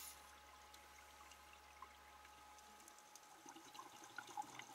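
Near silence: faint underwater ambience with scattered soft clicks that come a little more often in the second half.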